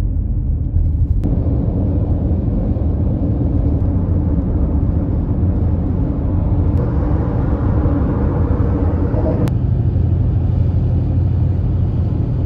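Road and engine noise inside a moving car's cabin, a steady low rumble. The sound changes abruptly a few times, with a faint click at each change.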